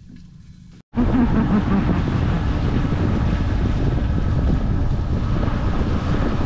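Wind buffeting the microphone in a loud, steady rush that starts suddenly after a cut about a second in; before the cut only a faint low background.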